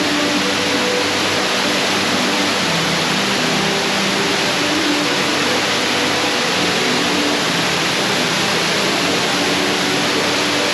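Ruby Falls, a 145-foot underground waterfall, pouring into its cave pool: a loud, steady, unbroken rush of falling water.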